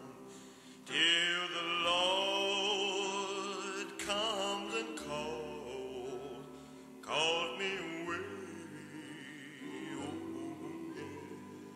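A song playing: a solo singing voice with strong vibrato over a sustained accompaniment, new phrases starting about a second in and again about seven seconds in.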